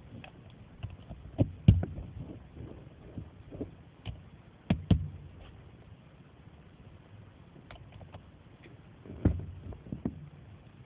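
Plastic Lego bricks being handled and pressed together, giving scattered clicks and knocks in three short clusters: near the start, in the middle and near the end.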